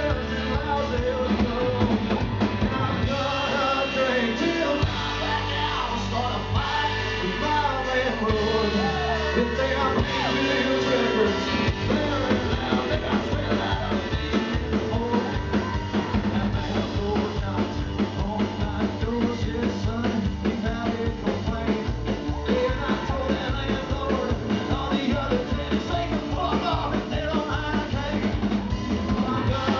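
Live band playing: electric guitar, electric bass and drum kit with a steady, driving beat.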